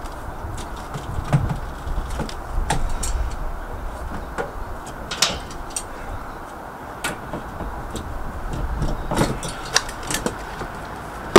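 Scattered clicks and knocks of clear plastic hose and fittings being handled against a plastic water tank, over a steady low background noise.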